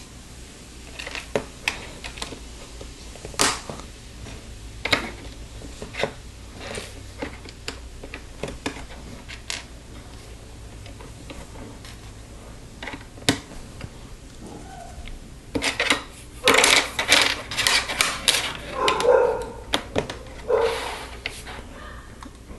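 Plastic Lego pieces clicking and snapping together as they are pressed on, one sharp click every second or so. A busier stretch of clicking and clattering follows a little past the middle.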